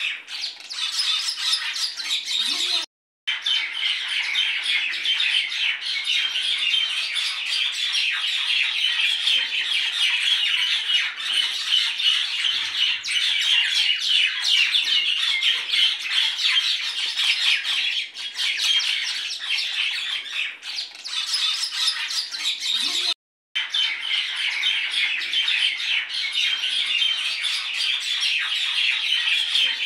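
A dense, continuous chorus of many birds chirping and squawking together, which cuts out for a moment twice.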